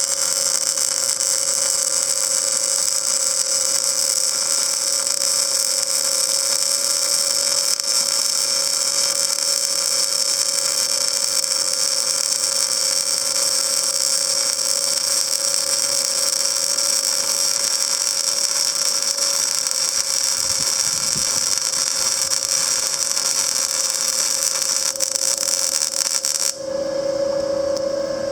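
Panasonic YD350GR3 semi-automatic welder laying a bead: a steady, loud hissing arc with a constant machine hum beneath it. The arc stops abruptly near the end, leaving only the welder's hum.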